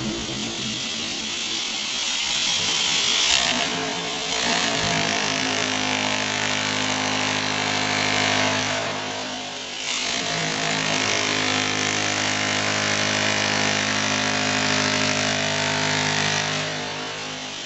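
Corded electric demolition hammer chiselling into concrete, running steadily with a brief let-up about nine to ten seconds in, while chunks of concrete break and knock.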